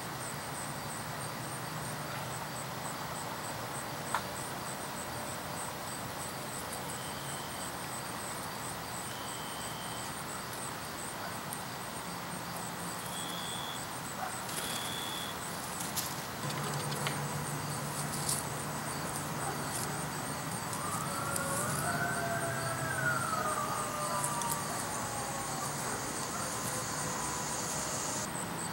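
Backyard ambience: a high, fast insect trill keeps going, with a few short high peeps. About 21 seconds in, a faint siren wails, rising and falling for a few seconds.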